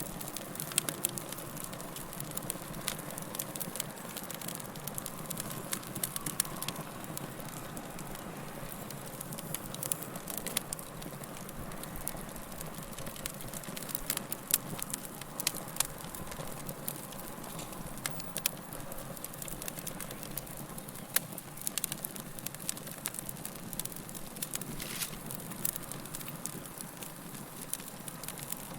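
Fire crackling steadily: a bed of hiss and low rumble with many sharp, irregular pops and snaps.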